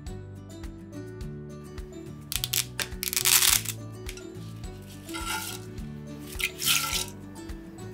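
Background music, over which a bundle of dry spaghetti is snapped in half by hand: a loud crackling snap about two to three seconds in, then two shorter crackles later.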